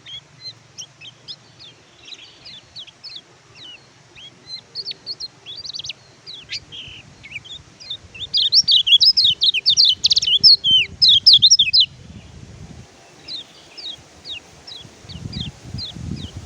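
Kecial kuning (pleci white-eye) singing a fast twittering song of short, high, downward-sliding chirps. It grows into a dense, loud burst in the middle, then turns to softer, spaced chirps. A low rumble runs underneath and grows near the end.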